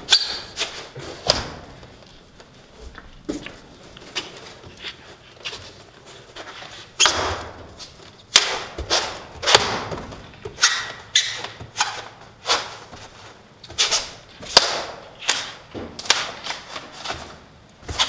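Hands pressing, patting and wedging a foil-faced rigid foam insulation board into place against a steel building wall: a string of irregular thumps and taps. They are sparse at first and come every half second or so from about seven seconds in.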